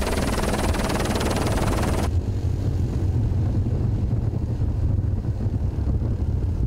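Helicopter noise: a loud, dense low rumble with a hissing top. About two seconds in the hiss drops away suddenly, leaving the low rumble running.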